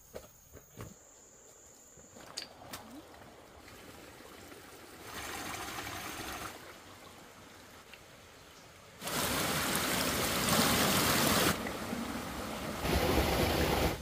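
Running water with a steady rushing sound, in segments that switch on and off abruptly. It is faint with a few light clicks at first and loudest from about nine seconds in.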